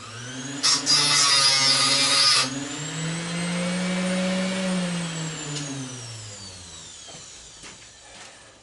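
Electric grinder spinning up, grinding briefly and harshly against a die-cast faucet part to bare the metal for a copper sulfate test, then winding slowly down with a falling whine.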